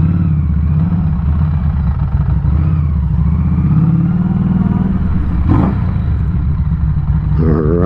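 Harley-Davidson Street 500's liquid-cooled V-twin running at low speed, its pitch rising a little about four seconds in. There is a single sharp click about five and a half seconds in.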